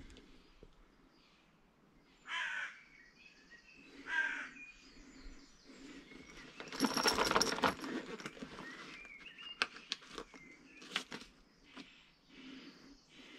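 A crow cawing twice, two harsh calls a couple of seconds apart, then a loud rustle lasting about a second, followed by a few faint bird chirps and clicks.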